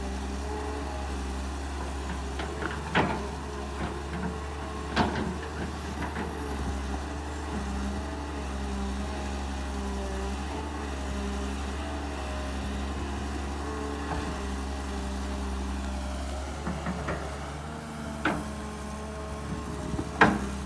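Kobelco SK200 excavator's diesel engine running steadily, its pitch shifting a little now and then as the machine works. Sharp clanks cut through it about three and five seconds in, and twice near the end.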